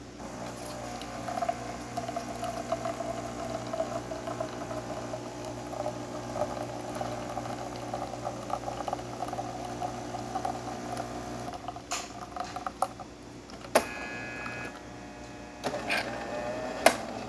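Jura C9 espresso machine running its cappuccino steam cycle with no frother attached: a pump hum with steam sputtering and crackling. This changes abruptly about twelve seconds in, and a few sharp clicks follow.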